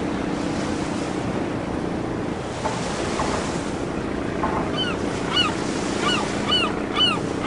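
Seaside sound bed of steady surf and wind, with a gull calling in short arched cries that repeat about every half-second from around five seconds in.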